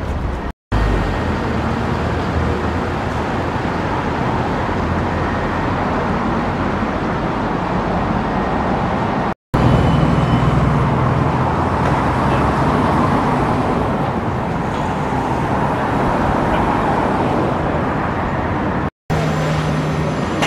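City street traffic: cars and buses running, a steady hum of engines and tyres. It drops out briefly twice where shots are cut together.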